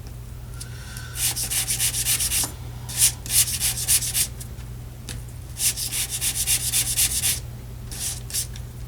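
Sandpaper rubbing back and forth on a small metal bezel strip in quick strokes, in four bursts with short pauses between, the last one brief, cleaning the metal for soldering.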